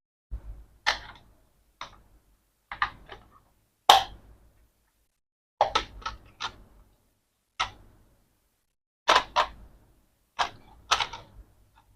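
Sharp plastic clicks and knocks from handling the toy tank and its parts, about a dozen at irregular intervals, some in quick pairs or triples.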